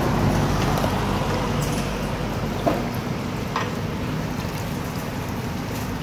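Steady low rumble of background traffic, with a couple of faint clinks about two and a half and three and a half seconds in.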